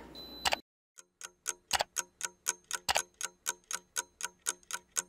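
Clock-ticking sound effect, about four even ticks a second, starting about a second in, used as a transition to mark time passing.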